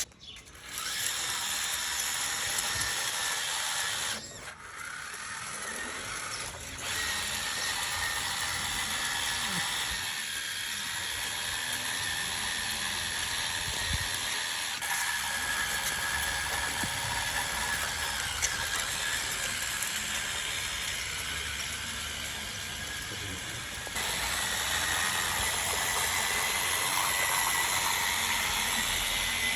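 Electric drive motor and plastic gearbox of a Huina 1536 RC dump truck whirring steadily with a faint high whine, stepping louder and quieter several times.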